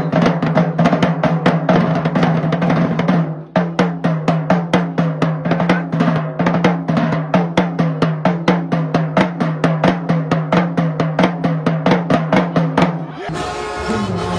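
Marching band drumline of bass drums and snare drums playing a fast, even cadence, with a short break about three and a half seconds in. Near the end the drumming stops abruptly and steadier band music with held notes follows.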